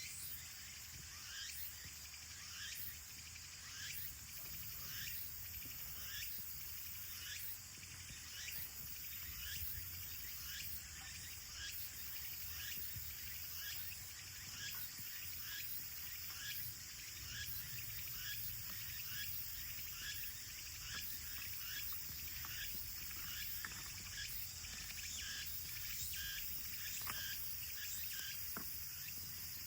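Insects, crickets or the like, chirping in a steady outdoor chorus, with many short repeated chirps over a continuous high-pitched drone.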